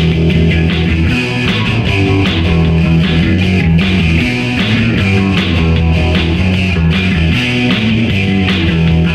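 Punk rock band playing: bass guitar lines under guitar, with drums keeping a steady beat.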